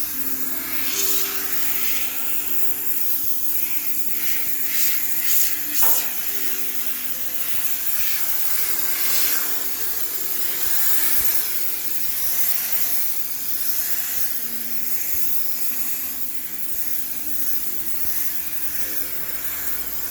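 High-pressure steam cleaner spraying, a fluctuating hiss that swells in short louder spurts about five to six seconds in.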